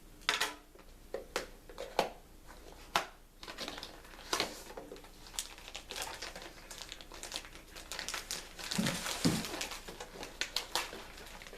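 Plastic packaging being opened and handled, crinkling with many sharp crackles. The rustling thickens into a continuous crinkle in the second half.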